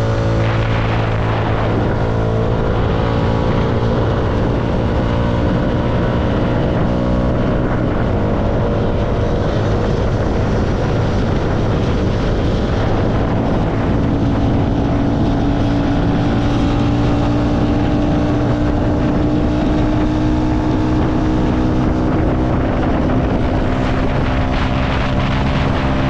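CFMoto motorcycle engine running steadily at cruising revs, with wind rushing over the microphone. The engine note rises slowly through the middle, then drops back near the end.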